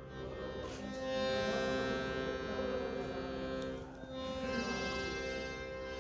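Piano accordion playing slow, held notes and chords that change about a second in and again near four seconds.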